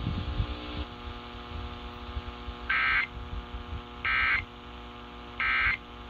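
Emergency Alert System end-of-message data bursts received over a software-defined radio: three short, identical digital warbling bursts about 1.4 s apart, over a steady radio hum. They mark the end of the monthly test message.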